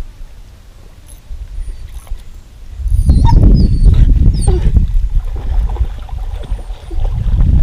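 Wind buffeting the microphone, a loud low rumble starting about three seconds in and easing off before picking up again near the end. A few short, high chirps or whines sound over it early in the gusts.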